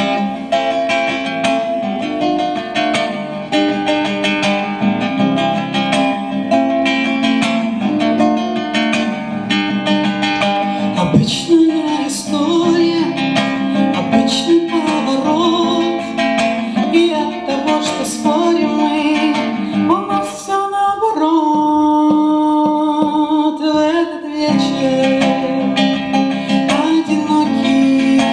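A woman singing to her own accompaniment on a nylon-string classical guitar, strumming chords throughout. Her voice comes in more clearly about halfway, and she holds one long note for a few seconds near the end.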